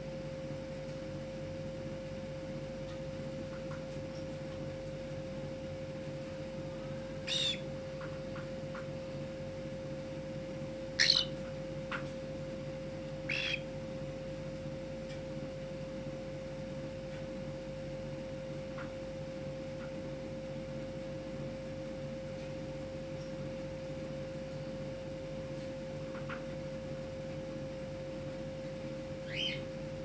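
Four short cockatiel chirps spread far apart, each a quick falling note, the second the loudest, over a steady high-pitched hum.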